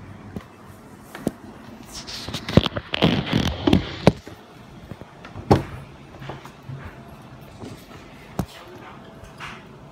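A burst of knocks and clatters from objects and the camera being handled close to the microphone, with one sharp knock about five and a half seconds in and a single click near the end.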